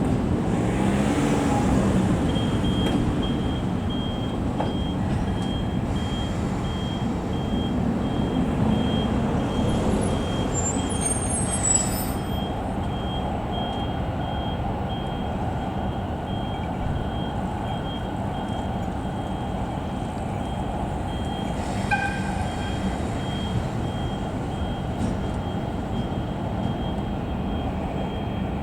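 JR Class DE10 diesel-hydraulic locomotive running with a steady low engine rumble as it moves the consist through the yard. A high, rapidly pulsing beep sounds from about two seconds in, and a brief high squeal comes about eleven seconds in.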